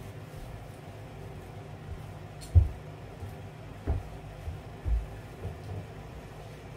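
Bare footsteps on a raised wooden platform floor partly laid with vinyl deco tile, a handful of dull thuds with the loudest about two and a half seconds in, over a steady low hum.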